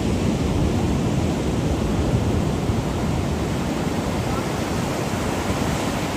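Ocean surf breaking and washing up the beach: a steady rush of noise.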